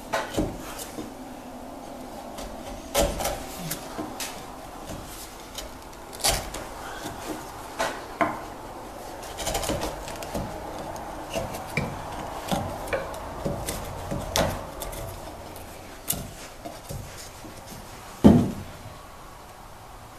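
Bench chisel paring the walls of a mortise by hand: irregular crisp scrapes and clicks as the blade shears off wood fibres, with one louder knock near the end.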